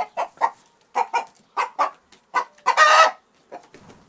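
Domestic chicken clucking in short runs of calls, with one longer squawk about three seconds in.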